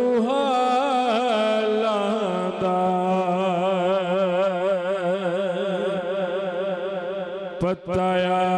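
A man singing a Punjabi naat (devotional song) into a handheld microphone, drawing out long wavering notes over a steady low drone, with a short break for breath near the end.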